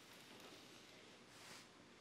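Near silence: room tone, with a faint soft swish about one and a half seconds in.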